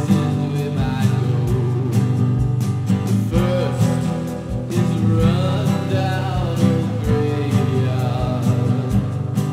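Background music: guitar over a steady drum beat.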